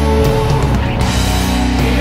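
Heavy rock music with electric guitars, a recorded band track.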